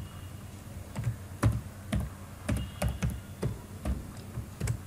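Computer keyboard being typed on: single keystrokes clicking at an uneven pace of about two or three a second.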